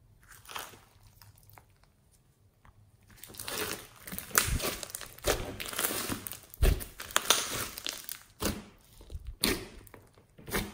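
Hands kneading, pressing and stretching fluffy slime mixed with small beads, making irregular squishing and crackling sounds. It is fairly quiet for the first few seconds, then a dense run begins about three seconds in, with a few sharper squishes near the end.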